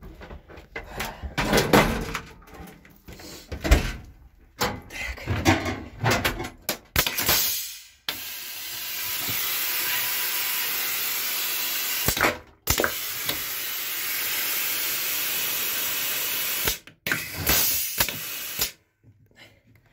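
Carriage toilet being flushed: a steady rushing hiss of water that runs about four seconds, breaks off for a moment and runs about four seconds more, with a shorter burst after, following a few seconds of knocks and clatter from handling. The flush is a leak test of the newly refitted drain joint under the bowl.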